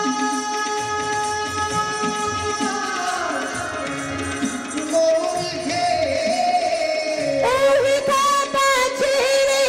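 Live Bengali Baul folk song with harmonium accompaniment: a long held note, then the singing voice comes in louder with a wavering line about seven seconds in.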